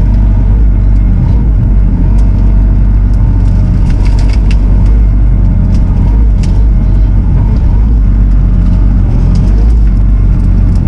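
Diesel engine of a Bobcat compact machine running steadily under load, with a wavering hydraulic whine over it and a few short clicks and knocks.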